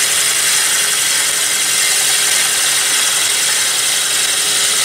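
1-inch Colt Forstner bit on an extension, fed from the lathe tailstock, boring into the end grain of a spinning walnut blank: a steady, loud, hissing cutting noise.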